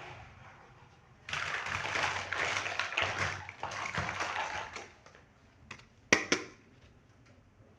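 Plastic packaging and toy parts handled during unboxing: a burst of crinkling and rustling lasting about three and a half seconds, then a few light ticks and two sharp clicks near the end.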